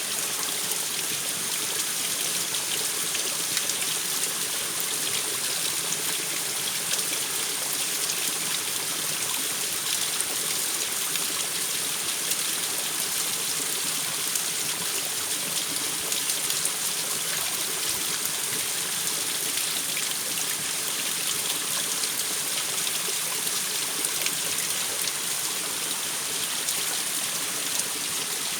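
Waterfall: water pouring and splashing in a steady, unbroken rush with a bright hiss.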